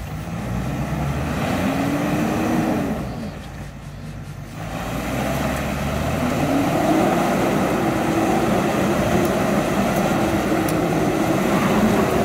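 Off-road SUV engine revving hard under load in 4x4. The pitch climbs and drops about two seconds in, eases off briefly, then climbs again and is held high and wavering, typical of a vehicle straining to push through mud or up a slope.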